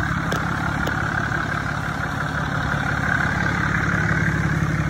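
A 6.7 Cummins inline-six turbo diesel idling steadily, running smoothly.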